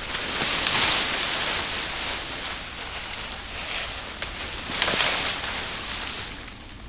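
Brushwood being dragged over the forest floor: a steady scraping hiss of leaves and twigs, with a few sharp snaps along the way.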